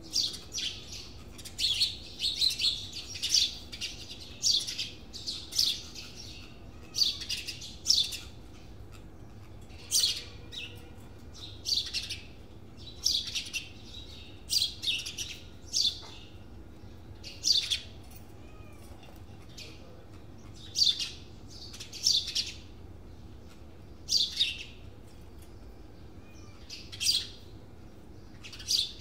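Birds chirping: short, high chirps repeated every second or two, over a faint steady low hum.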